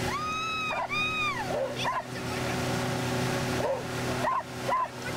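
Dog whining at the boat's stern: two long, high, arching whines, then short yips every second or so. Underneath runs the steady drone of the outboard motor, with wind and water from the wake.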